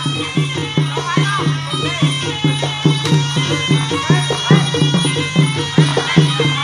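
Traditional Kun Khmer boxing music: a reed pipe (sralai) playing a winding melody over a fast, steady drum beat of about four strokes a second.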